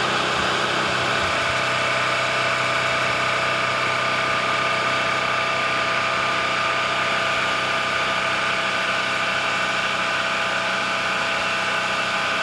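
A machine running steadily, with a constant high whine over a low hum and no change in speed.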